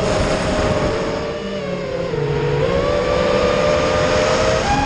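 FPV racing quadcopter's brushless motors and propellers whining with a rush of air. The pitch sinks to its lowest a little past halfway, climbs again with the throttle, and jumps up just before the end.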